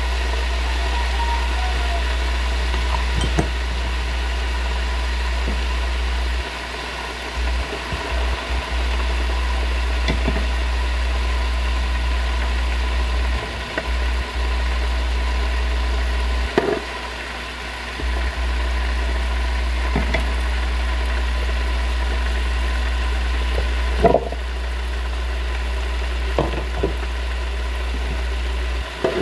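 A steady low hum, with a handful of light, scattered clicks and knocks as metal tongs handle squid on an electric grill pan and plate.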